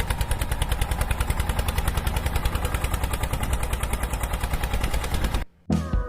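John Deere 8360R tractor's diesel engine running with a rapid, even pulsing. The sound cuts off abruptly near the end, and music starts just after.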